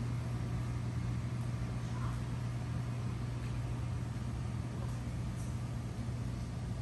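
Steady low hum of the ventilation fans running in a large metal-walled hall, with a few faint ticks over it.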